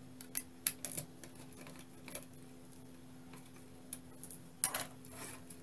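Small scattered clicks and ticks of a screwdriver backing small screws out of a multimeter's circuit board and of hands handling the plastic case, with a few louder clicks about half a second in and again near the end.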